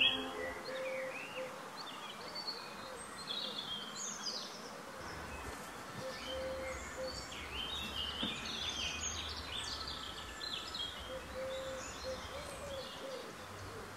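Several birds chirping and singing in quick high phrases over a steady outdoor background hiss.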